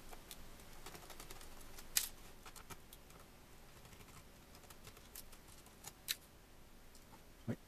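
Faint, scattered clicks and ticks of a Phillips screwdriver working screws out of a laptop's plastic bottom case, with a sharper click about two seconds in and a few more near the end.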